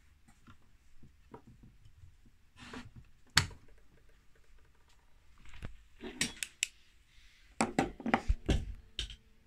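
Mantle clock's hinged glass bezel and wooden case being handled, giving irregular sharp clicks and knocks: a single loud click about three and a half seconds in, then clusters of quicker clicks near the end.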